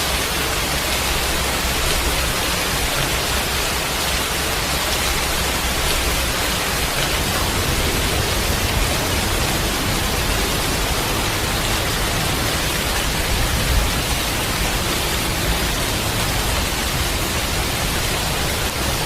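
Steady rushing noise of hurricane wind and heavy rain, with a low rumble that grows stronger about a third of the way through.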